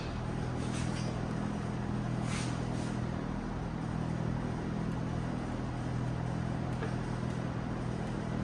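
Steady low machine hum with an even haze of noise. Faint rustles and knocks come from a plastic dashboard and a vinyl sheet being handled, about half a second in and again around two and a half seconds.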